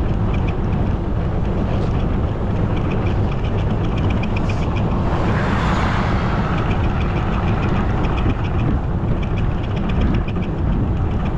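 Wind buffeting the microphone of a camera on a moving bicycle, a steady rumble, with stretches of rapid even ticking from the bike and a brief swell in the noise about halfway through.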